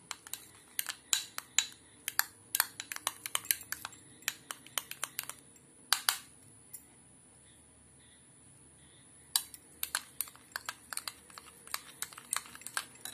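Steel spoon clinking and scraping against a small white bowl while stirring flour into a little milk to a paste: quick, irregular clicks, pausing for about three seconds in the middle.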